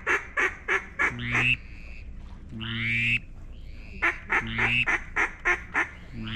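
Mallard hen quacking on a hand-blown duck call to work a circling duck: long drawn-out quacks, each followed by a run of quick short quacks, repeated several times.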